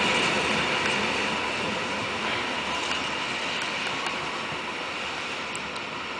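Koleje Mazowieckie passenger train pulling out of the station and moving away, its running noise fading steadily.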